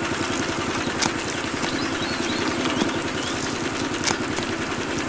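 A small motor running steadily with a fast, even buzzing pulse, driving the toy cement mixer truck's drum as it pours out black gravel.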